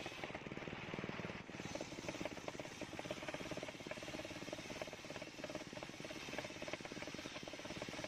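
Large table-mounted circular saw blade ripping lengthwise through a long timber beam, cutting steadily with a fast, even rattle.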